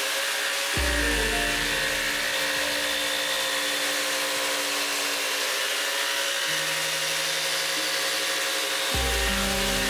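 Table-mounted power saw running and cutting a kerf through plywood. The sound grows heavier and lower when the blade bites into the wood about a second in, and lightens again when the cut ends near the end.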